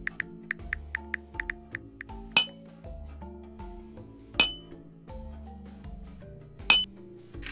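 Computer mouse clicking: a run of light quick clicks, then three loud sharp clicks with a short ring, about two seconds apart, over background music.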